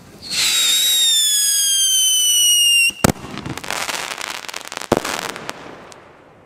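A firework shot whistles as it climbs, one whistle falling slowly in pitch for about two and a half seconds. It ends in a sharp bang about three seconds in, followed by dense crackling of cracker stars, with a second bang near five seconds.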